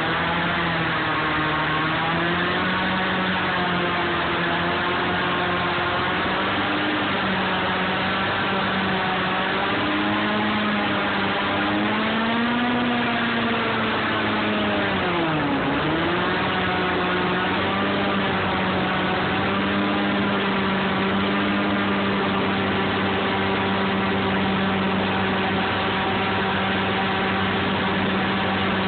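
Airboat engine and air propeller running under way, the pitch wavering as the throttle changes, dipping sharply and climbing back about halfway through, then holding steady.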